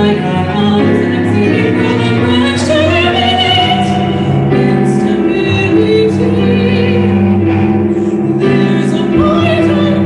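Soprano singing over a bowed cello and keyboard piano accompaniment, with long sustained notes.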